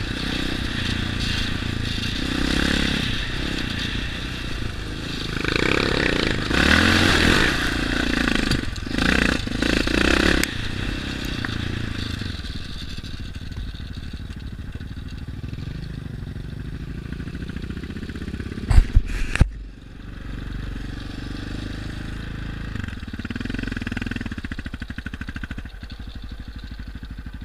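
Yamaha Raptor sport quads' single-cylinder four-stroke engines running and revving while riding over rough ground, louder in stretches a few seconds in. A few sharp loud knocks come about two-thirds of the way through, then the engine runs lower and steadier.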